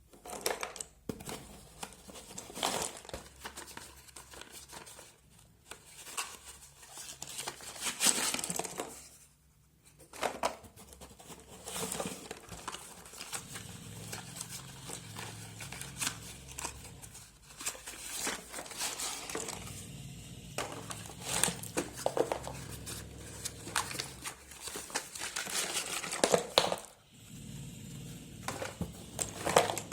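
Packaging of a box of slate pencils being unwrapped by hand: irregular crinkling and tearing, broken by a few short pauses.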